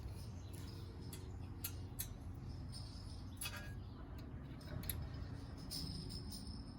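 Scattered light clicks and taps from handling the license plate bracket hardware, over a steady low hum.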